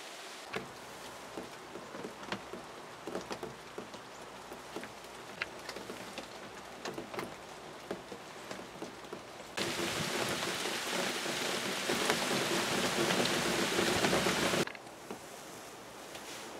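Rain falling, with scattered drops ticking irregularly as water drips off the edge of a wooden box blind's roof. About ten seconds in the rain turns to a louder, steady hiss for about five seconds, then drops back.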